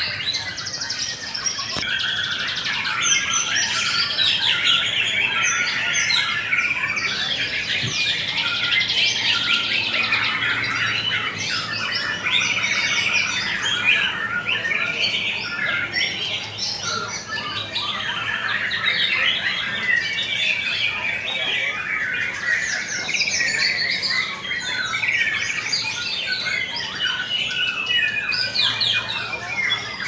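Many caged white-rumped shamas singing at once, a dense, unbroken chorus of overlapping whistles and rapid trills from birds competing in a song contest.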